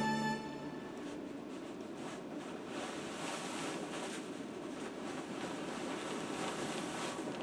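Steady wind rushing, with the tail of string music cutting off about half a second in.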